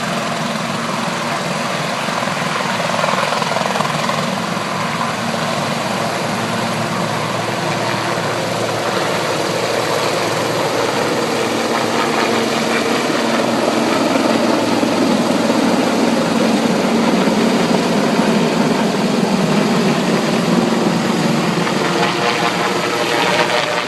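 Helicopter running close by: steady rotor and engine noise that grows somewhat louder and gains a steady low hum about halfway through.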